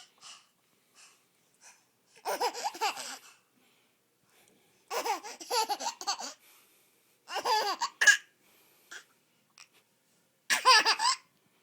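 Baby laughing in four bouts, each a second or so long, with pauses between.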